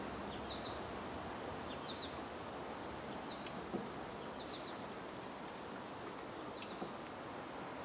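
A bird repeating a short, high, falling chirp about every second and a half, over faint steady outdoor background noise, with a couple of faint clicks.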